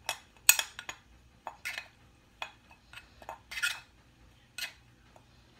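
Metal fork stirring dry flour mix and salt in a ceramic bowl: irregular scrapes and clinks of the tines against the bowl, about a dozen short strokes.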